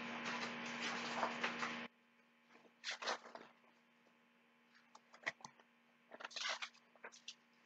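Pages of a picture book being opened and turned by hand: a few short rustles and flaps of paper, over a steady electrical hum that drops much quieter about two seconds in.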